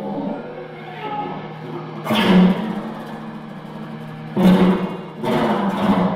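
Experimental improvised music on prepared guitars through amplifiers and effects: a steady low drone, with sharp struck or strummed attacks that ring out about two seconds in and three more in quick succession near the end.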